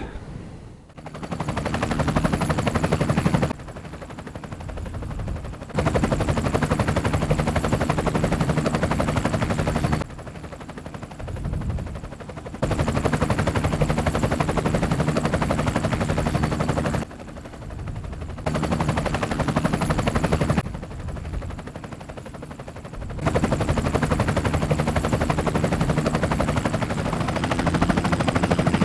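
Motorcycle engine running under way, a fast steady pulsing with wind rush on the helmet microphone. The level jumps abruptly between louder and quieter stretches several times.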